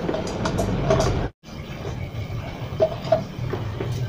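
Light metallic clinks of a steel drift rod shifting against the bearing spacer inside a motorcycle's alloy wheel hub while the wheel bearing is being knocked out, over a steady low rumble. The sound cuts out briefly a little over a second in.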